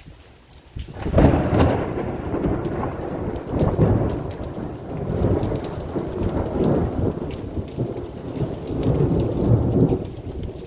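Thunder breaks about a second in and rolls on in long, rumbling swells that ease near the end, over a steady patter of heavy rain.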